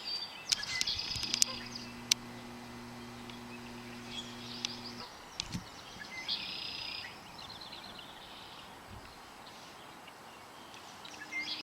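Small birds chirping and singing, with a few sharp clicks in the first two seconds and a low steady hum from about one to five seconds in.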